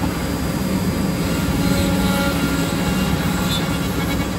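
Steady hum of a 4-axis CNC mortise-and-tenon milling machine running, its motors giving a low even tone over a broad mechanical whir.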